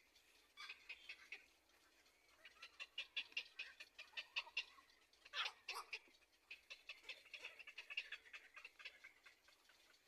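Black-crowned night heron chick begging from the nest: faint runs of rapid ticking calls, with one louder call about halfway through.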